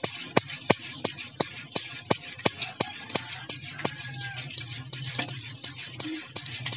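Metal spoon beating eggs and oil in a stainless steel bowl, clinking against the bowl's side about three times a second.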